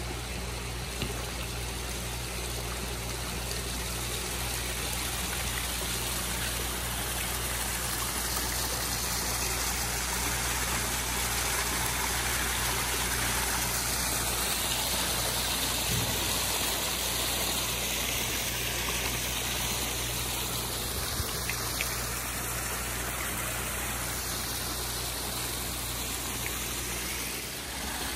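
Water from a pump-fed rock waterfall trickling and splashing over stone ledges into a koi pond, steady throughout, with a low steady hum underneath.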